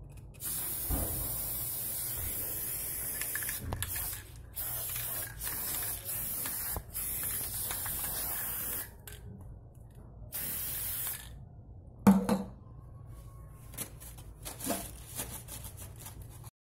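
Aerosol spray paint can hissing in five bursts over about eleven seconds, the first lasting about three seconds, as gold paint is sprayed on. About twelve seconds in comes a sharp knock, the loudest sound, followed by a few light clicks of handling.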